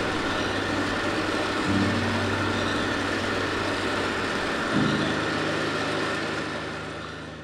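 Coffee roaster's cooling tray running, its fan and stirring arms making a steady rushing noise as they turn the freshly roasted beans, over a low droning tone that shifts twice. It all fades out near the end.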